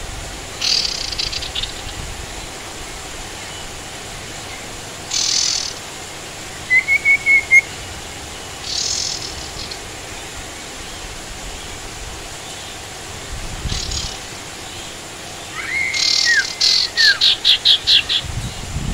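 Caged sirtu songbirds chirping: short, sharp high calls every few seconds, a brief trill about seven seconds in, and a quick run of about eight chirps near the end.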